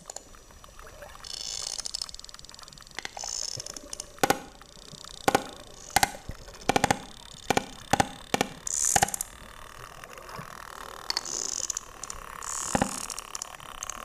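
Sperm whale clicks recorded underwater: a run of sharp clicks about a second apart from around four seconds in, with one more near the end, over bubbling, hissing water noise.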